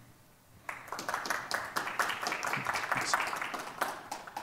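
A small audience applauding: scattered hand clapping that starts about a second in and dies away near the end.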